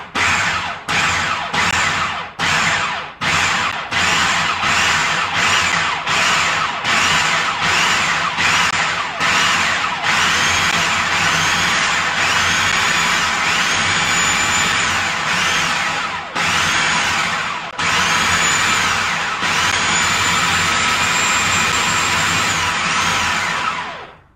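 Food processor motor pulsing while it chops and blends broccoli pesto as olive oil is drizzled in. Short quick pulses come first, then longer runs of several seconds, the whine dipping and recovering in pitch as the blades catch the mixture. It cuts off near the end.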